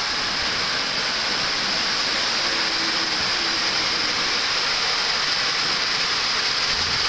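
A steady, even hiss of background noise, with faint distant voices about three seconds in.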